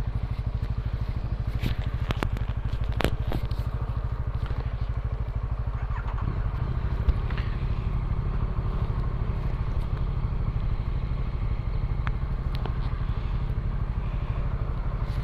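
Motorcycle engine idling steadily with an even, rapid pulse. A few sharp clicks come in the first three seconds.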